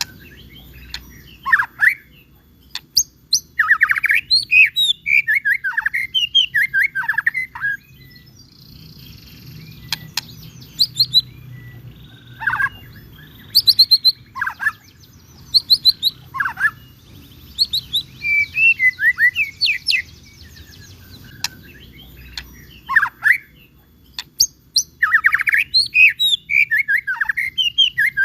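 White-rumped shama (murai batu) singing vigorously: bursts of rapid, sweeping whistled phrases and quick trills, separated by pauses of a second or two, over a faint low hum.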